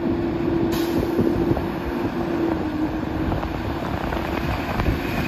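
A Peterbilt garbage truck's engine running as the truck drives slowly toward the listener, a steady rumble with a held droning tone that dips slightly in pitch partway through.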